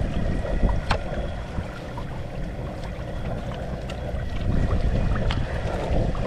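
Steady low rumble of wind on the microphone mixed with the propane burner under a pot of frying oil, with a few light metallic clicks from a wire spider strainer against the pot.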